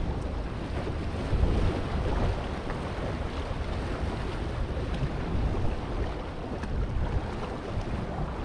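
Small harbour waves washing and splashing over a low rock shelf, with wind rumbling on the microphone.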